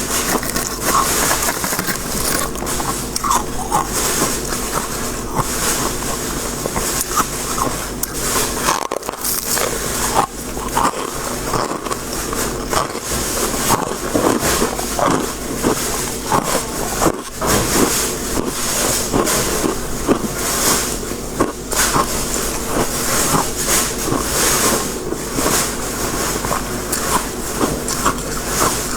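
Freezer frost shaved ice being chewed close to the microphone: a dense, continuous run of crisp crunches.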